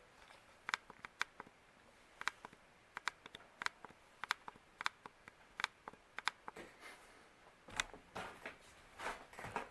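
Faint sharp ticks at uneven spacing, roughly two a second, from a Hampton Bay Cameron II ceiling fan turning on low speed.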